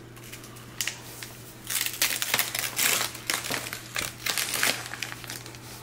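Wrapping paper being torn and crumpled off a gift box by small hands, in a run of irregular rips and crinkly rustles that starts about a second and a half in.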